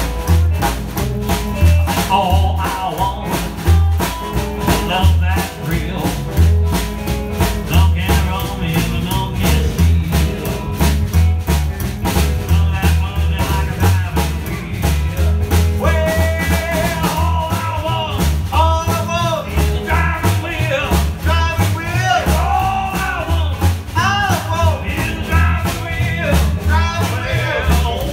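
A live rock-and-roll band: a man singing over strummed acoustic guitar, upright bass, electric guitar and a snare drum keeping a steady beat. The singing is clearest in the second half.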